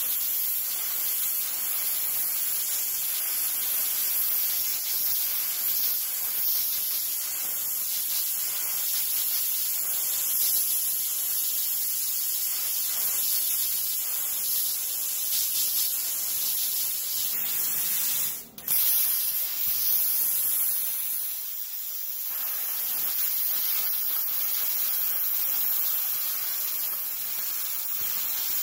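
PrimeWeld Cut60 60-amp plasma cutter cutting through thick solid steel: the steady, loud hiss of the plasma arc and compressed air blowing through the torch. About eighteen seconds in the arc cuts off for a moment, then starts again.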